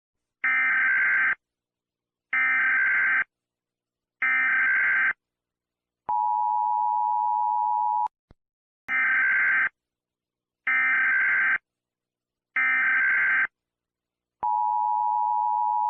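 Emergency Alert System signal: three short buzzy SAME header data bursts, then the two-tone attention signal held for about two seconds, then three more data bursts and the attention signal starting again near the end.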